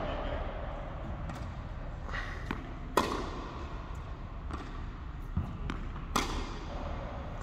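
Tennis ball impacts on an indoor court: two sharp, loud pops about three seconds apart, a few fainter taps between them, each ringing briefly in the hall.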